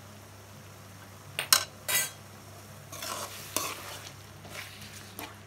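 Metal spoon stirring a simmering potato gravy in a metal kadai, scraping against the pan in a few short strokes, about a second and a half in and again around three seconds in, with light clinks near the end.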